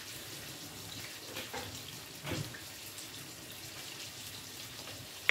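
Chicken pieces frying in oil in a frying pan: a steady, quiet sizzle with a few small crackles.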